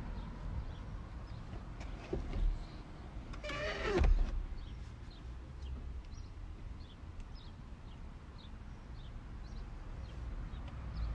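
Low rumble of a handheld microphone, with small birds chirping faintly outside every second or so. About three and a half seconds in comes one louder short squeak that falls in pitch.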